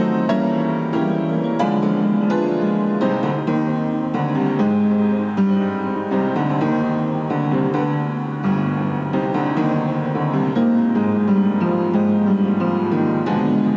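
Piano music playing a busy stream of quick notes, in the manner of a silent-film accompaniment.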